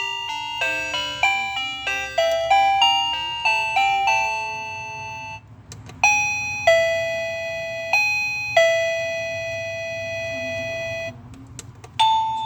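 Doorbell chime playing its tunes. A quick melody of single notes ends about five seconds in. After a short pause comes a slow two-note ding-dong, played twice, and a new tune starts near the end.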